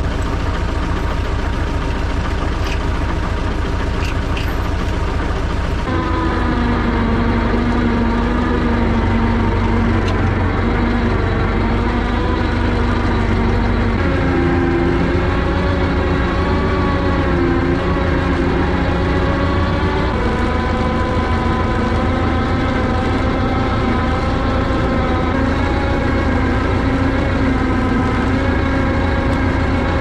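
Tractor engine running steadily under load while hauling a log with a hydraulic log grapple. The engine speed rises about six seconds in and shifts again about fourteen seconds in.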